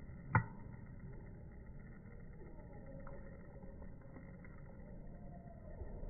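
Faint low rumble of outdoor background noise, with one sharp click about a third of a second in.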